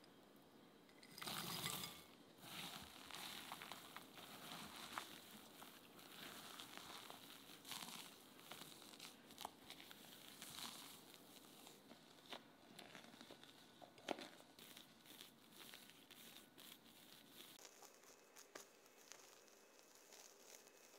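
Chopped walnuts tipped into a glass bowl of stiff meringue about a second in, then a silicone spatula folding the nut meringue, a string of small irregular clicks and rustles. Near the end the spatula is spreading the mixture on a parchment-lined baking tray.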